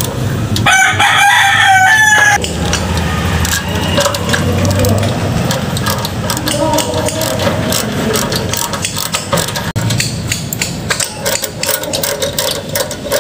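A rooster crows once, about a second in, for under two seconds. Around it are sharp metal clicks and clinks of a ratchet and socket and loose parts being worked on a small gasoline engine, more frequent in the second half.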